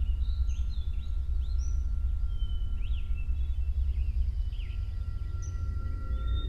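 Outdoor ambience: several birds chirping and singing in short, quick phrases over a steady low rumble of wind on the microphone.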